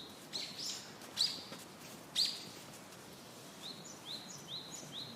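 Small bird chirping: a string of short, high, rising chirps, a few louder ones in the first half and a quicker run of fainter ones near the end.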